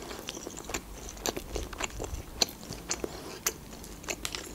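Close-miked chewing of food: irregular small clicks and crunches from the mouth, several a second.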